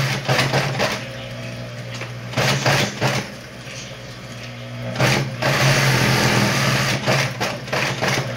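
Industrial flatbed lockstitch sewing machine stitching in three runs: a short one at the start, another about two and a half seconds in, and a longer one from about five seconds in to near the end. Its motor hums steadily in the pauses between runs.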